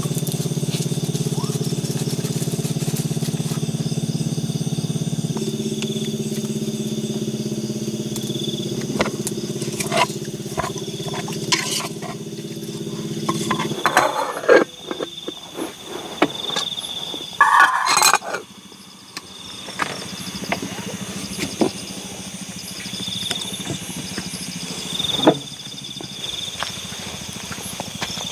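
A small engine running steadily, shifting slightly in pitch about five seconds in and cutting off about halfway through. Scattered knocks and clatter follow.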